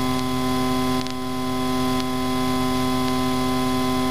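Cessna 152's four-cylinder Lycoming O-235 engine idling as the aircraft taxis, heard from inside the cockpit as a steady, even drone with a strong hum.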